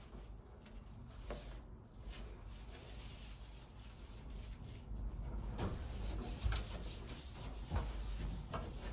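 Damp cloth handled and then wiped over a glass shower screen, with a few light knocks from about halfway on.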